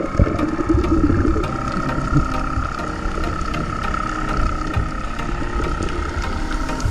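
Muffled underwater noise picked up by a camera in its waterproof housing: a low rumble with scattered knocks, and a steady high whine held throughout.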